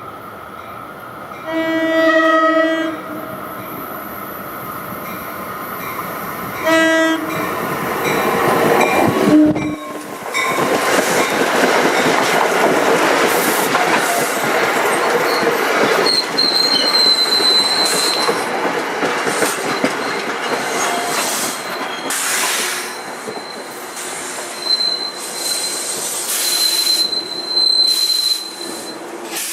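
NJ Transit commuter train sounding its horn, one longer blast and then a short one, as it approaches. It then rolls loudly past with a continuous rumble of wheels on rail and high wheel squeal, as it comes into the station.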